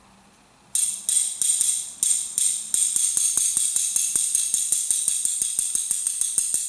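Steel diesel injector body from a 1.9 TDI being shaken hard, small metal parts rattling inside it in sharp metallic jingles, a few strokes a second at first, then faster at about six a second; an attempt to shake loose a stuck shim.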